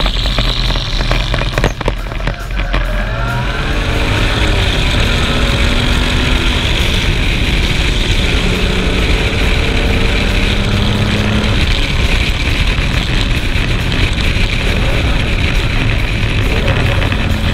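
Onboard sound of a vintage sports racing car's engine accelerating out of a corner, its pitch rising a few seconds in and then holding steady, under heavy wind rush on the microphone. Rattling crackles in the first two seconds.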